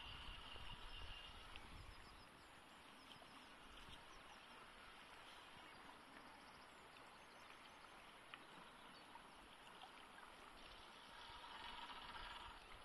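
Faint, even rush of flowing river water.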